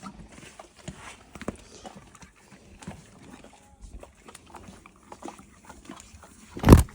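Horses at a mineral lick block, licking and mouthing it: scattered soft clicks and scrapes, with one loud bump near the end.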